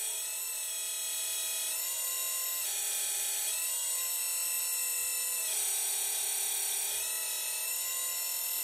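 Hydraulic gear pump of an RC Hidromek excavator running with a steady whine. The whine steps up and back down in pitch several times as the load changes. The tank is still short of oil, the condition behind its cavitation.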